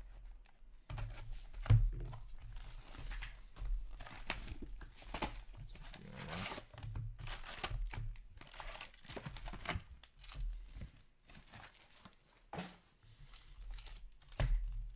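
Plastic wrapping being torn off a hockey card hobby box, then the box's foil card packs crinkling as they are pulled out, handled and stacked. There are a few thumps, the loudest about two seconds in and another near the end.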